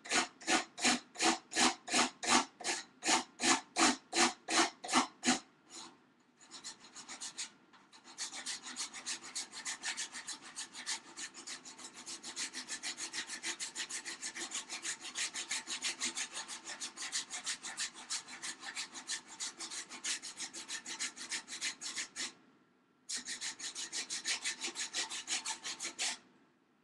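Hand file rasping back and forth along the rough edge of a small wooden frame, shaving it down. Strong, even strokes about two and a half a second for the first five seconds, then after a short pause quicker, lighter strokes, which stop briefly about three quarters of the way through and then resume.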